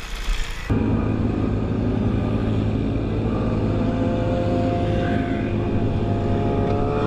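A motor vehicle engine running at a steady speed, with an even, unchanging pitch. It follows an abrupt cut, less than a second in, from a windy, hissing clip.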